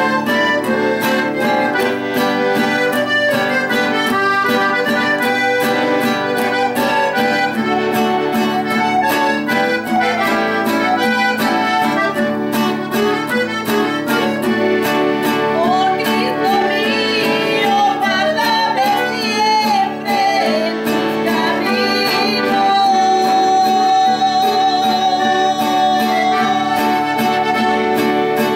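Accordion playing a melody over a steadily strummed nylon-string classical guitar. In the second half the accordion holds one long note.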